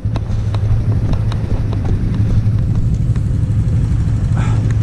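ATV engine idling steadily, with scattered light clicks and knocks of handling and footsteps over it.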